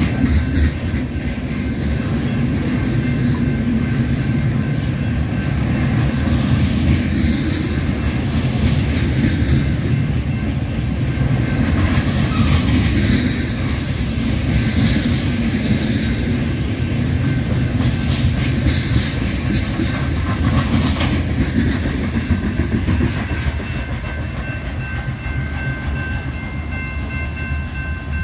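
Freight train of covered hopper cars rolling past: a steady heavy rumble with the wheels clacking over the rails. A steady high-pitched tone of several pitches joins about five seconds before the end.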